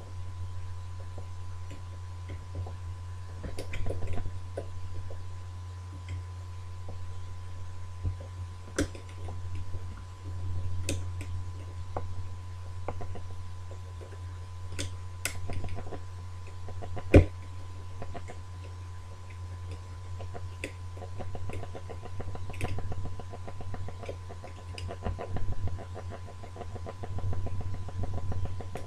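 Scattered small clicks and scrapes of a tension wire and picking wire working the levers of an ERA multi-slot lever lock, with one sharper click about two-thirds of the way through, over a steady low hum.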